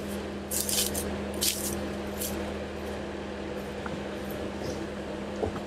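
Off-road vehicle's engine running at a low, steady crawl, heard as a constant hum. Three short hissing noises come in the first two and a half seconds.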